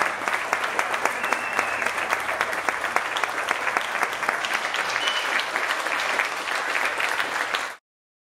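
Audience applauding steadily, a dense clatter of many hands clapping, which cuts off suddenly near the end.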